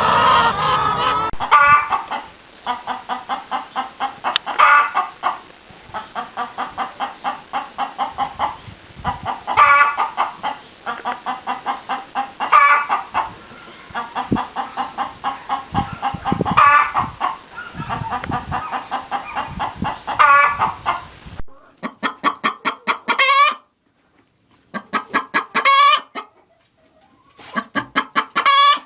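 Hens clucking in rapid runs of short notes, each run ending on a louder, longer note, over and over. About two-thirds of the way through the recording changes to another hen doing the same, clearer and with pauses between runs.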